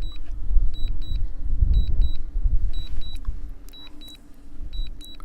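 Strong wind buffeting the microphone as a gusting low rumble, the loudest sound. Over it, a drone remote controller's high warning beeps come in pairs, repeating about every three-quarters of a second.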